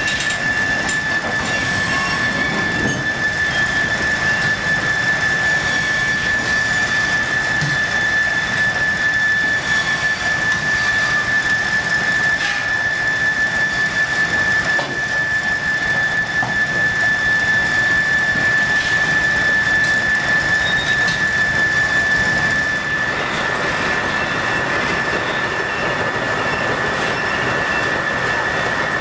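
Steam-powered sawmill machinery running steadily, driven from a single steam engine, with a loud, steady high-pitched whine over a mechanical clatter; about two-thirds of the way through the whine spreads into a broader, rougher hiss.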